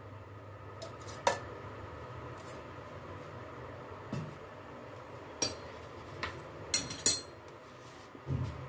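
A metal spoon clinking against a kadhai a few times as a little oil is added to the heated pan, with the loudest pair of clinks about seven seconds in and a soft knock near the end.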